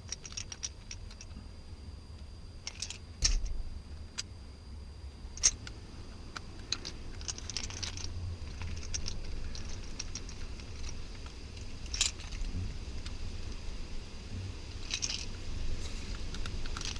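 Phillips screwdriver backing small screws out of a plastic power window master switch assembly: scattered light clicks and ticks of the driver and plastic parts being handled, with a few sharper knocks, over a low steady hum.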